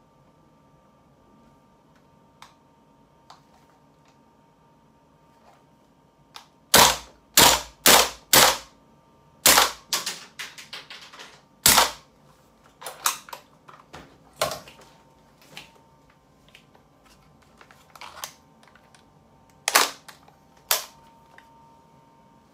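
WE G36/SL8 gas blowback airsoft rifle firing semi-auto, a quick string of sharp shots with the bolt cycling on each, starting about seven seconds in, with another shot near twelve seconds. Lighter clicks and clacks of the rifle being handled follow, with two sharper clacks near the end.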